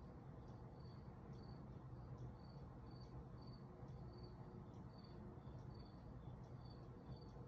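Near silence: quiet room tone with a steady low hum, and faint short high chirps about twice a second, like an insect chirping.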